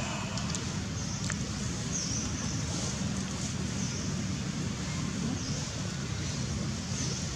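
Steady outdoor background noise: a low rumble under an even hiss, with a few faint high chirps.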